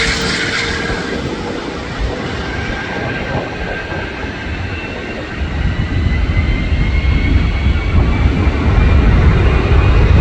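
Airbus A380-841's four Rolls-Royce Trent 900 jet engines in a steady roar, with a thin whine that slowly rises in pitch. A deep rumble builds and grows louder from about halfway through.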